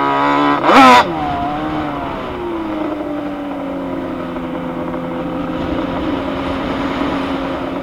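Yamaha Banshee ATV's twin-cylinder two-stroke engine revving hard, peaking about a second in, then easing off and running at a steady throttle.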